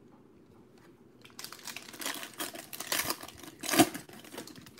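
Wrapper of a Panini Prizm baseball card pack being torn open and crinkled by hand, a run of crackling that starts about a second in and is loudest near the end.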